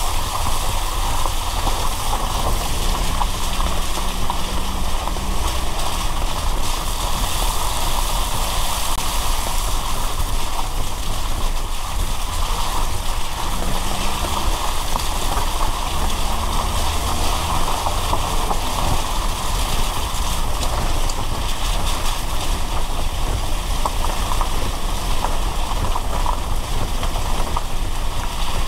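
Car driving in the rain: a steady hiss of tyres on the wet road and falling rain over a low, constant rumble, with a faint engine note rising and falling now and then.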